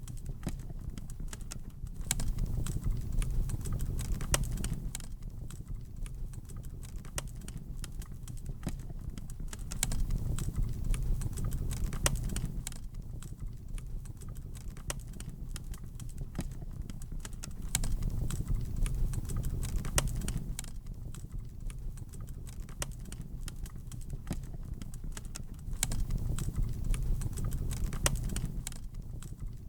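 Wood fire in a fireplace crackling, with frequent sharp pops. Under the crackle a low rumble of flames swells and falls back about every eight seconds.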